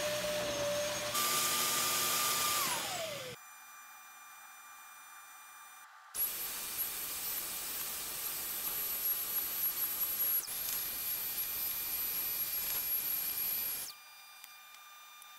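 Vacmaster 3-in-1 wet/dry shampoo vacuum running as its extraction wand is drawn over a shag rug: a steady motor whine over rushing suction noise. About a second in the whine jumps higher, then falls away and the sound drops to a faint hum; about six seconds in the vacuum comes back suddenly and runs on, stopping near the end.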